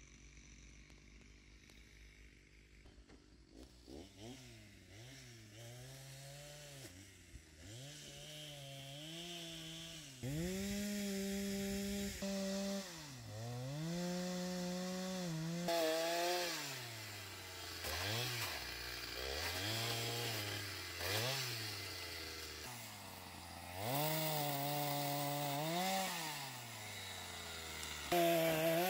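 Petrol chainsaw cutting branches, revved up and let fall back over and over, each rise in pitch held for a second or two. It starts about four seconds in, and the loudest rev comes near the end.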